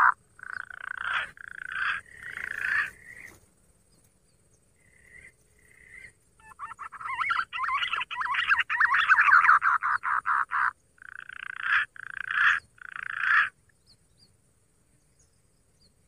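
Green pigeon (punai) lure call made by mouth: rapid rattling trills in bursts, a long run in the middle and three short bursts near the end.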